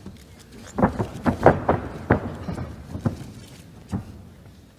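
Irregular thuds and slaps from two mixed martial artists grappling on a ring mat: about seven in all, several in quick succession, then two single ones a second apart.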